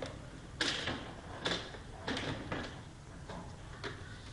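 Plastic outer casing of an Epson L200 printer being worked loose and lifted off: several sharp plastic clicks and scrapes as its clips and edges give way.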